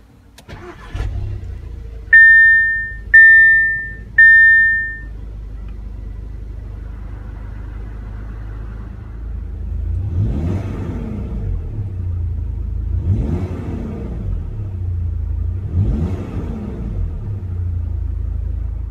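2016 Audi TT's 2.0-litre turbocharged four-cylinder engine starting on the push button and settling into a steady idle, with three loud beeps a second apart just after it catches. Later it is revved three times, each rev rising and falling back to idle.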